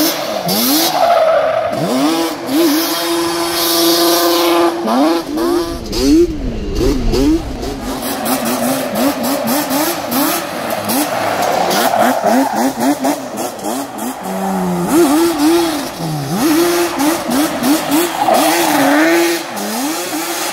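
A two-stroke sport quad's engine revving hard, its pitch climbing and dropping again and again as the throttle is worked, held high for a moment now and then.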